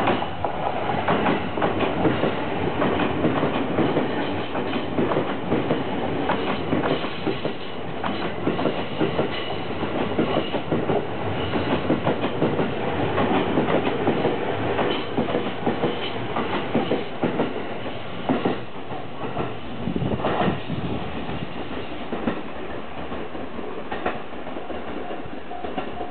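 JR East E231-1000 series electric train passing over a level crossing, its wheels clicking over the rail joints in quick, uneven succession. The noise starts abruptly and eases off about twenty seconds in as the last cars go by.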